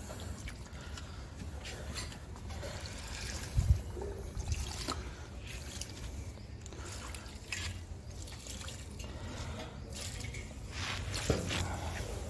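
Water poured from a stainless-steel pot onto potted plants, trickling and splashing into the soil. A short low thump about a third of the way in is the loudest sound.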